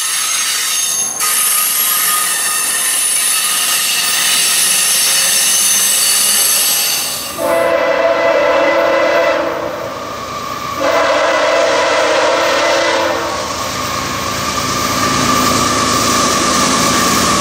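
Freight locomotive air horn sounding two long blasts, a chord of steady tones each lasting about two and a half seconds, as a CSX freight train approaches. Before the horn, the passing MARC bilevel commuter train gives a high ringing hiss from its wheels on the rails; after it, the approaching freight's rumble grows louder.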